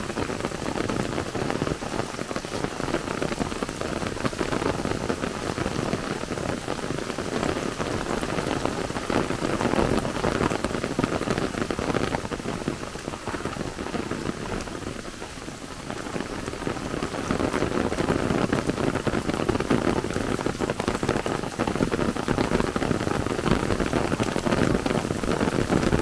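Rain pattering on an open umbrella held over the microphone, a dense, steady patter of drops that eases briefly about halfway through.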